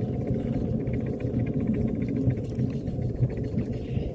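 A small ride-on cart running along a paved track: a steady low rumble of the cart and its wheels on the concrete.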